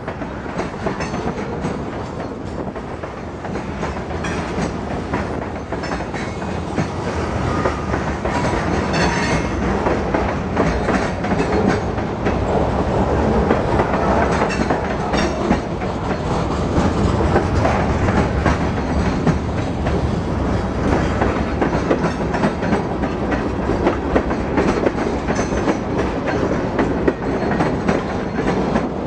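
Freight cars of a long freight train rolling past close by: a steady rumble of steel wheels on rail with a constant clickety-clack of wheels over the rail joints, growing somewhat louder partway through.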